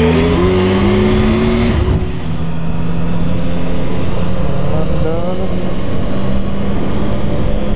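Music ends about two seconds in. After that, a Triumph Tiger 1050's inline three-cylinder engine runs at a steady cruise under thick road and wind noise.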